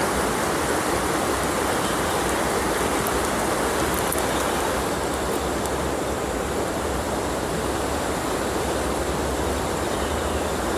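Flowing river water rushing steadily, an even hiss with a low rumble underneath.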